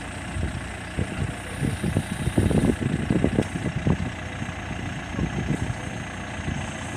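Backhoe loader's diesel engine running steadily, with a run of irregular low thumps in the middle.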